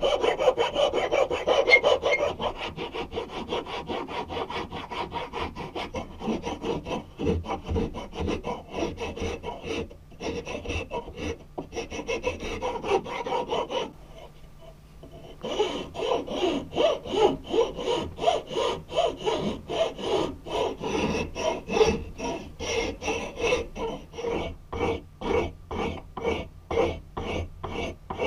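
Hand file stroked back and forth across a wooden strip, shaping a new wooden hammer handle: quick rasping strokes, a short pause about halfway through, then steadier strokes at about two a second.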